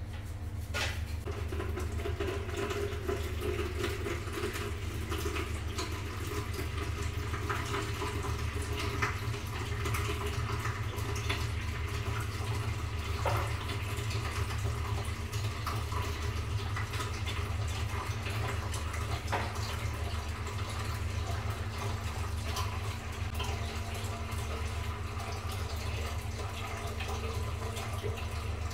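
Toilet water running steadily, with a constant low hum underneath and irregular short scrubbing strokes as the toilet bowl is brushed.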